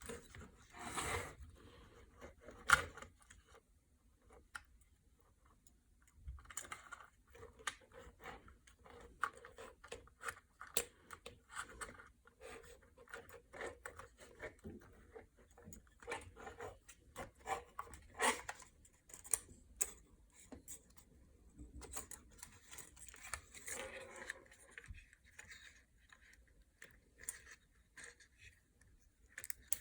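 Faint, irregular small clicks, taps and scrapes of a screwdriver working small screws out of a drone arm and the parts being handled, with one sharper click about three seconds in.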